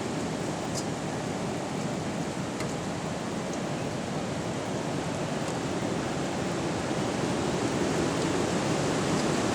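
Strong wind blowing in a steady rush, slowly building in strength toward the end, with a few faint ticks.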